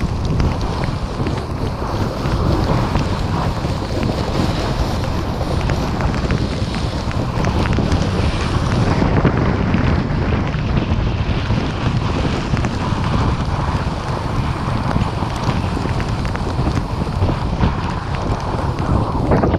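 Wind buffeting the microphone during a snowboard run through powder snow, a loud, steady rushing rumble heaviest in the low end.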